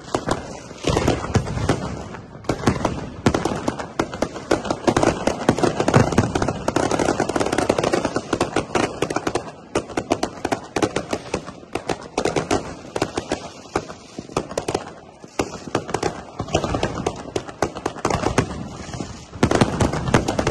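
Fireworks and firecrackers going off in a dense, irregular string of crackles and pops, with some louder bangs among them.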